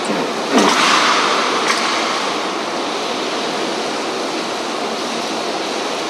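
Steady rain: an even hiss of falling water, with a couple of brief louder sounds in the first two seconds.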